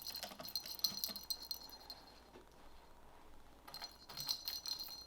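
Small jingle bells jingling in quick, irregular shakes during the first second or so, going quiet for about two seconds, then jingling again near the end.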